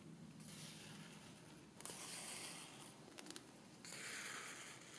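Sewing thread drawn through cotton fabric by hand: three faint swishing pulls of about a second each, with small clicks in between.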